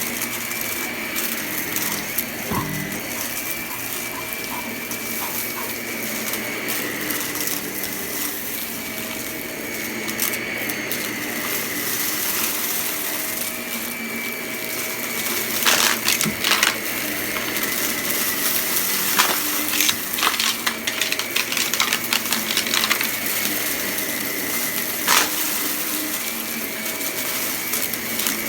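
Upright vacuum cleaner running with a steady whine while crunchy debris is sucked up, rattling and crackling through the machine as sharp clicks that come thick and fast from about halfway through.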